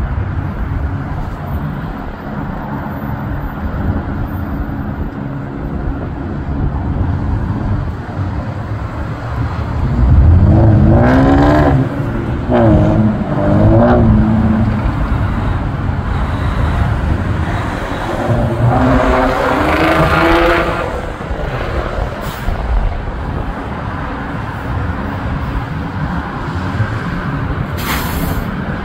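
Steady road traffic rumble, with two louder passes about ten and eighteen seconds in that carry wavering pitched tones.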